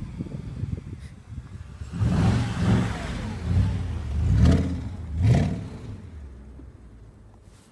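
Mercedes-Benz W211 E500's V8 engine revving hard in about four surges between two and five and a half seconds in, then fading away.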